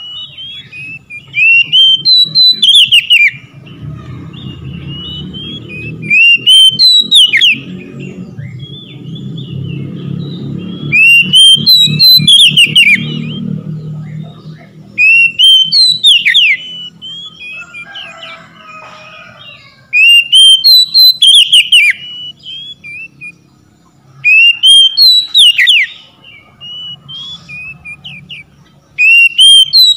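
Oriental magpie-robin singing: loud phrases of up-slurred and down-slurred whistles, about seven bursts of song a few seconds apart. A low rumble runs under the song through its first half.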